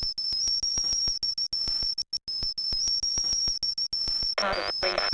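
Sample-based electronic track played live on a Teenage Engineering Pocket Operator K.O.: a steady high-pitched tone over a fast, stuttering run of clicks with brief cut-outs. About four seconds in, a pitched melodic sample comes in on top.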